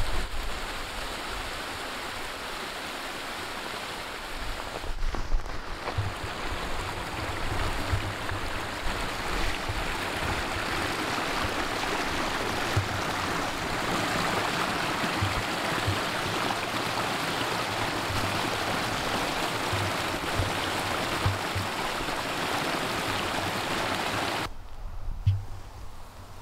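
Small forest stream running over stones, a steady rush of water that cuts off suddenly near the end.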